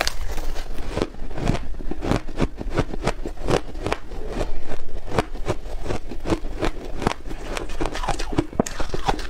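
Close-miked biting and crunching of soft, freshly frozen ice, with sharp crackling crunches several times a second throughout.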